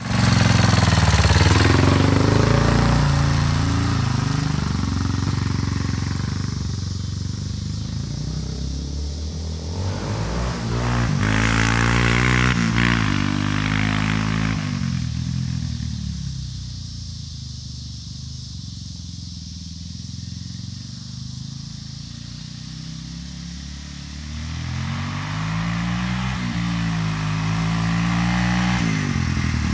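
Yamaha Warrior 350 quad's air-cooled single-cylinder four-stroke engine running through an FMF exhaust with the baffle removed. It revs as it pulls away, rising in pitch several times, fades as the quad rides off, and grows louder again as it comes back.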